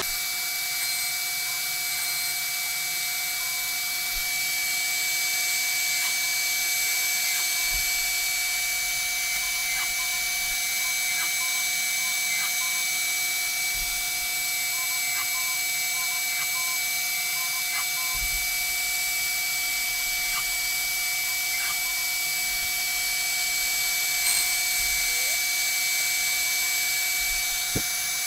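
DeWalt router on a CNC machine running steadily with a constant high whine while the machine moves it through a cut. A few faint ticks come through near the middle.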